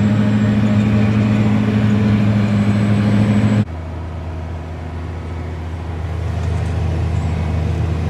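Heavy farm diesel engine running steadily. About three and a half seconds in, the sound cuts abruptly to another engine running at a lower pitch, which slowly grows louder.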